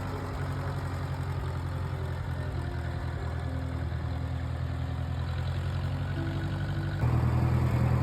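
1962 John Deere tractor engine running steadily, getting suddenly louder about seven seconds in.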